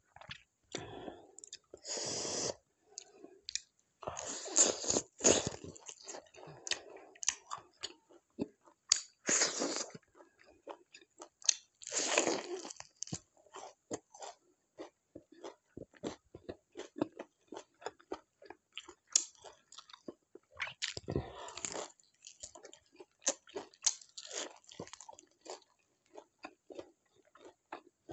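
A person chewing and biting food close to the microphone: irregular crunches, bites and mouth clicks, with a few longer, louder bursts along the way.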